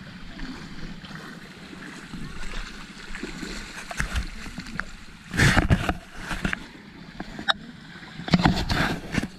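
Shallow sea water sloshing and splashing around someone wading, with two louder splashing surges, about halfway through and near the end.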